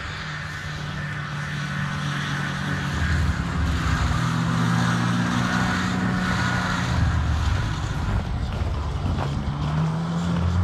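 Snowmobile engine running under way, its note fairly steady. It gets louder over the first few seconds and rises slightly in pitch near the end.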